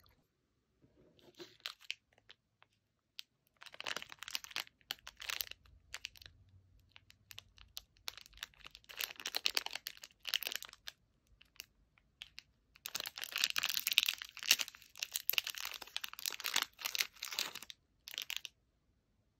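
Plastic snack packaging crinkling and tearing as it is handled and opened, in several separate bursts, the longest and loudest near the end.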